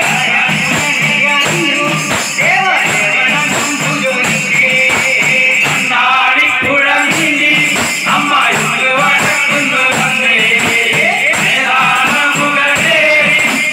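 Live chinthu paattu, a Malayalam devotional folk song: a group sings to a steady beat of tambourines and other hand percussion with jingles.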